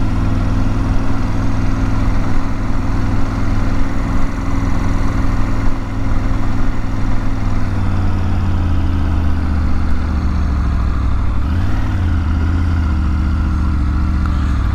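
Triumph Tiger 900 GT Pro's three-cylinder engine running at low road speed, heard from the rider's seat. About eight seconds in the engine note drops lower as the throttle eases, with a brief rise near the end.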